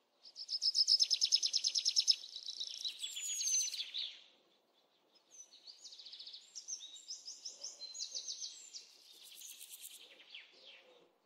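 A songbird singing: a fast, high trill of evenly repeated notes for about two seconds, then, after a short pause, a run of varied high chirping phrases.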